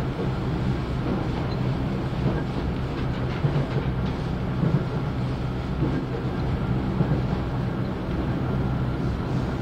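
Running noise heard inside a JR 311-series electric train car: a steady rumble of steel wheels on the rails, with a few brief louder clacks over rail joints.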